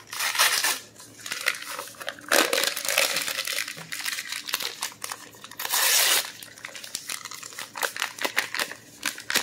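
Paper pouches of instant pudding mix being torn open and crinkled in the hands, in several loud bursts of rustling and crackling.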